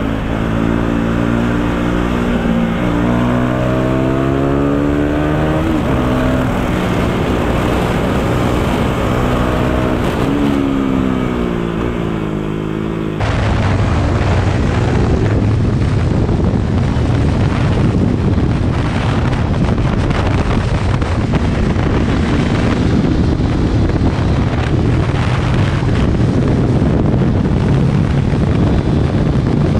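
KTM Duke 390's single-cylinder engine pulling hard under the rider, its pitch climbing and dropping back at gear changes, twice. About 13 seconds in the sound changes abruptly to a Honda CBR250R single riding at speed: a steady engine drone buried in heavy wind noise.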